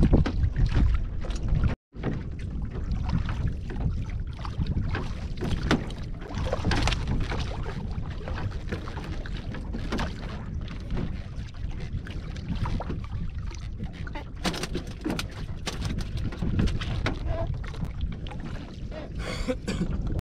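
Wind rumbling on the microphone in an open wooden boat, with scattered knocks and rustles as a fishing net and fish are handled on the planks. The sound drops out for a moment about two seconds in.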